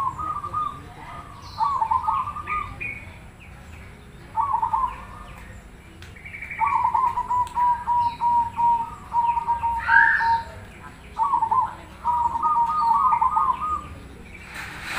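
Zebra dove (perkutut) of the black cemani cross, cooing its staccato song around 1 kHz. It sings in short bursts of quick notes a second or two apart, with one longer run of evenly repeated notes in the middle.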